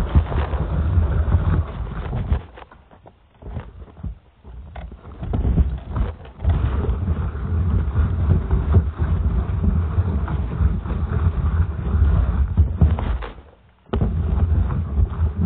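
Wind buffeting the microphone in a loud, low rumble that drops away twice, with footsteps in snow heard in the quieter gaps.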